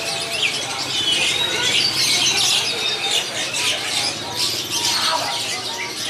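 Many caged songbirds chirping and calling over one another in a dense, continuous chorus of short high chirps and whistles.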